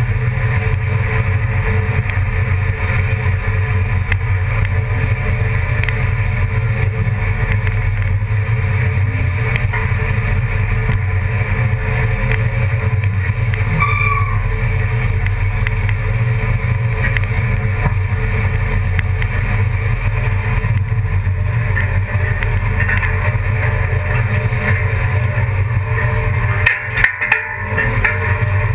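A motor vehicle's engine running steadily at an even pitch, with a low drone, close to the microphone. Near the end there is a brief bump and dropout.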